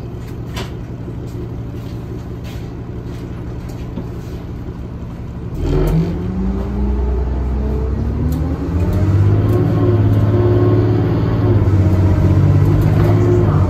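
Orion VII diesel city bus engine idling steadily, heard from inside the cabin, then revving up about five and a half seconds in as the bus pulls away, its pitch climbing and stepping up through the gears.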